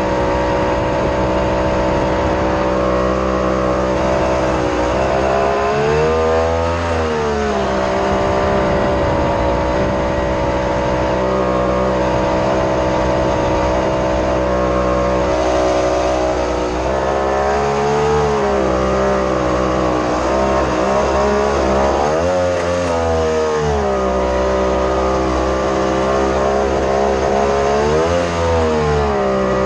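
Mini jetboat engine running hard, steady and loud, its pitch briefly rising and falling back four times as the revs change.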